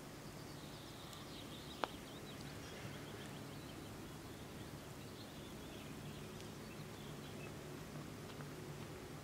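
A single sharp click of a putter striking a golf ball, about two seconds in, over faint bird chirps and quiet outdoor background.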